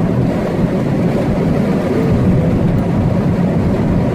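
Steady rush of wind buffeting and road rumble inside a moving car's cabin with the window down.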